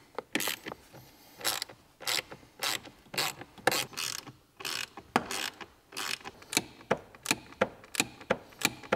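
Small socket ratchet clicking in short runs as it backs out the 7 mm bolts around a blower motor housing, about two clicks a second, quickening in the second half.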